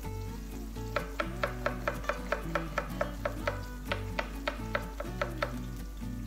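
Chef's knife slicing a red onion on a wooden cutting board: a quick run of sharp chops, about four a second, starting about a second in, with two short pauses and stopping shortly before the end. Background music plays throughout.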